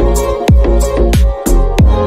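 Background music with a steady beat: deep drum hits that drop in pitch, two or three a second, with sharp higher hits over held notes.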